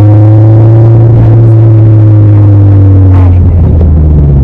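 Car driving, heard from inside the cabin: a loud, steady low hum with an engine note that rises slightly and then falls back.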